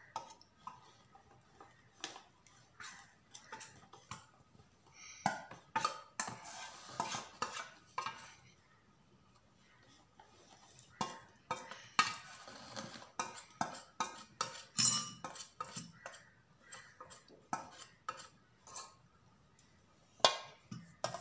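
A utensil scraping thick cake batter out of a stainless-steel mixing bowl, with an irregular run of metal clinks and knocks against the bowl and longer scraping stretches that come in two busy spells.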